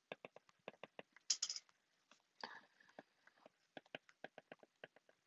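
Stylus tip tapping and sliding on a tablet's glass screen during handwriting: a run of faint, irregular clicks, several a second, with two short hissy sounds about a second and two and a half seconds in.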